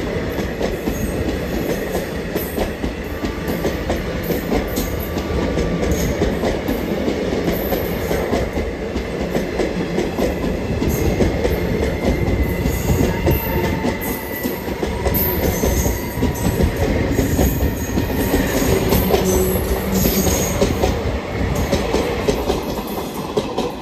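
Indian Railways passenger coaches passing close by at speed. A steady heavy rumble is broken by a constant clatter of wheels over rail joints, with a faint metallic whine above it.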